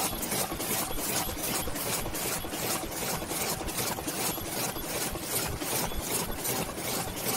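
DEBAO 138S high-speed paper cup forming machine running steadily, its mechanism cycling in an even rhythm of about two to three strokes a second over a constant mechanical hum.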